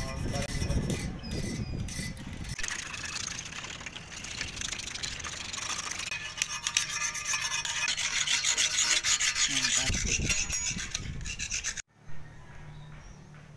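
Rapid back-and-forth rubbing or abrading strokes, dense and scratchy, typical of hand work on a bike part during restoration. They stop abruptly about twelve seconds in, leaving a faint low hum.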